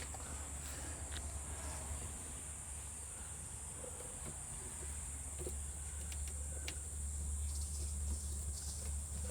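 Faint small clicks and scrapes of a screwdriver working on hose clamps around a patched water pipe, over a steady high-pitched insect-like drone and a low hum that grows a little louder in the second half.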